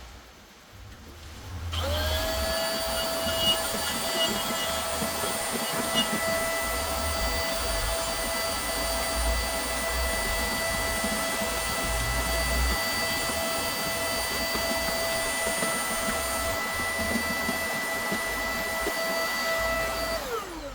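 A small electric motor, blower-like, spins up about two seconds in, runs with a steady whine and hiss, then winds down in pitch near the end.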